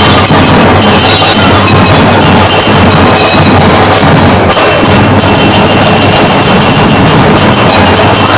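Loud percussion-driven dance music: drums and other struck percussion keep a steady beat, with some high ringing tones over them.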